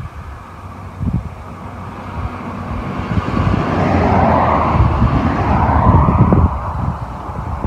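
Water pouring into the radiator filler of a Caterpillar 22 crawler tractor, a steady gushing that swells a few seconds in, with wind rumbling on the microphone.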